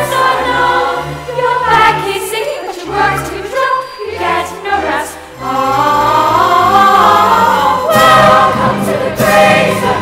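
A chorus of girls' voices singing a stage-musical ensemble number over an instrumental accompaniment with a stepping bass line.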